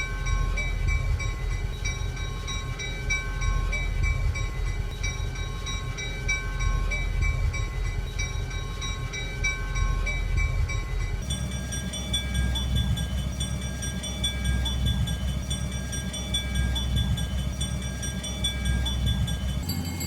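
Railroad crossing alarm bells ringing repeatedly over the low rumble of a passing train. About eleven seconds in, the bell changes to a different, higher-pitched ring, as at another crossing.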